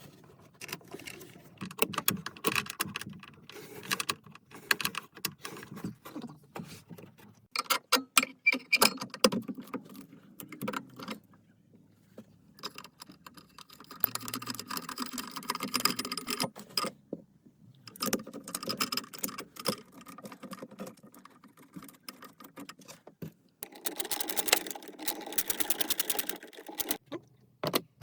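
Hand tools working on a car's 12V battery fittings: spells of quick, even ratchet-wrench clicking mixed with metallic clinks and knocks, broken by short pauses.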